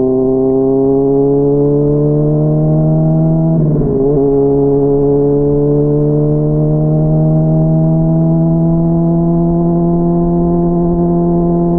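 Honda CBR600RR inline-four engine pulling under gentle acceleration, its pitch rising slowly; an upshift about four seconds in drops the revs briefly, then the pitch climbs slowly again. Muffled, heard from a microphone inside the rider's backpack.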